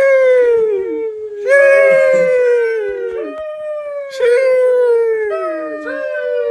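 Dog howling: a run of long howls, each sliding slowly down in pitch, with a new one starting every second or so and some overlapping.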